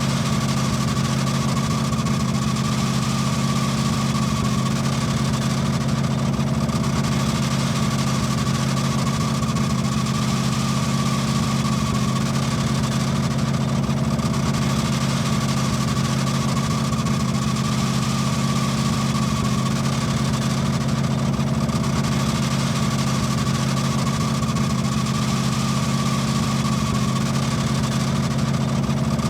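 Car engine idling steadily with a continuous squeaking from the engine's drive belt.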